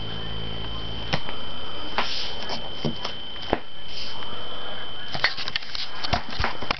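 Handling noise from a hand-held camera: rustling and scraping with a series of sharp knocks and clicks, thickest near the end as it comes to rest on the table, over a steady high whine.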